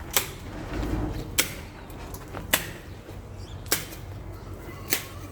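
Five sharp knocks or clicks, evenly spaced a little over a second apart, over quiet outdoor background noise.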